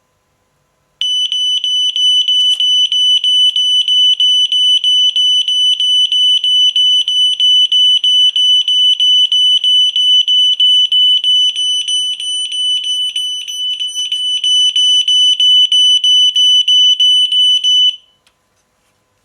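Smoke detector's piezo alarm sounding: a shrill high-pitched beep pulsing rapidly, several times a second, that starts abruptly about a second in and cuts off shortly before the end.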